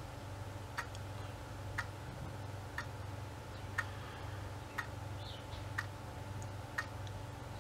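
A clock ticking steadily, one short tick a second, over a low steady hum.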